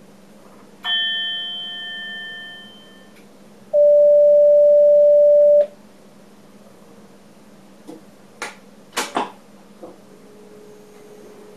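Train cab warning tones: an electronic chime sounds about a second in and fades away. Then a loud, steady single-pitched beep sounds for about two seconds and stops abruptly. A few short clicks follow, over a low steady cab hum.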